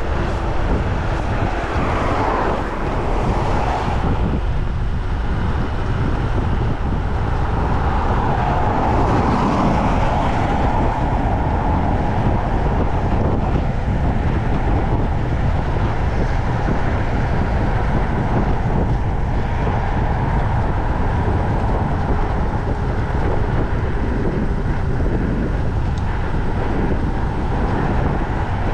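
Steady wind rush buffeting a chest-mounted action camera's microphone, mixed with the rolling noise of a mountain bike descending.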